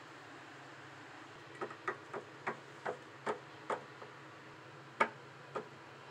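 Small toy figure tapped against a hard surface by hand, as if walking: about ten light knocks, two to three a second, the loudest about five seconds in.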